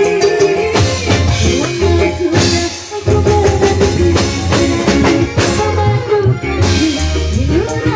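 Live dangdut band music, amplified, with a woman singing over drums and bass.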